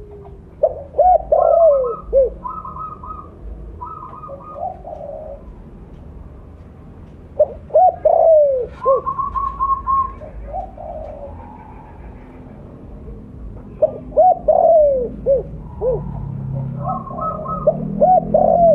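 Spotted dove (tekukur) cooing: four bouts of its rhythmic, multi-note coo a few seconds apart, each a quick run of short falling notes, with shorter, higher notes between the bouts.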